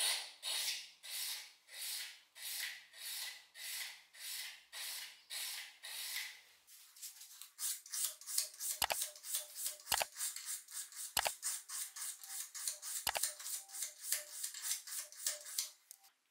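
Hand file scraping along a small steel blade in even strokes, about two a second. About seven seconds in the strokes turn quicker and lighter, around four a second, with a few sharp clicks among them, and stop just before the end.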